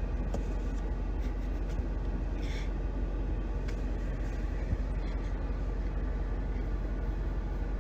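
Steady low rumble inside a car's cabin, the engine and road noise of the car, with a few faint clicks.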